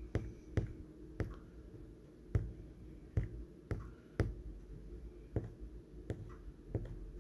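About ten short, sharp clicks at uneven gaps of roughly half a second to a second, like fingertip taps on a smartphone touchscreen, over a faint steady hum.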